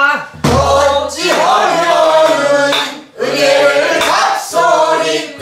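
A group of men and women sings a phrase of pansori in unison, repeating the line just sung by the teacher, in two long sung phrases. A low buk barrel-drum stroke falls about half a second in.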